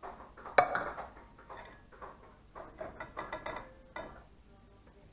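Metal sieve and stainless steel saucepan knocking and clinking while stock is strained: one sharp knock about half a second in, then a string of lighter taps and rattles.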